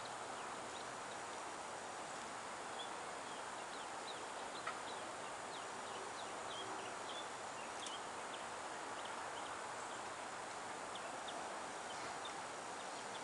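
Faint outdoor ambience: a steady hiss with many brief, high bird chirps scattered through it.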